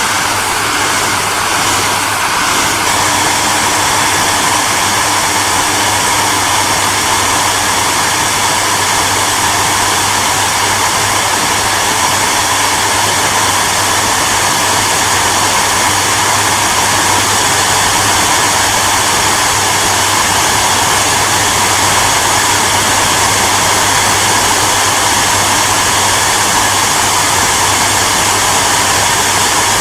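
Hair dryer running steadily: a continuous rush of blown air over a low, even motor hum.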